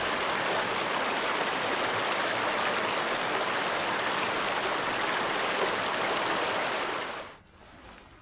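Steady rushing noise like running water that cuts off abruptly about seven seconds in, leaving faint clicks.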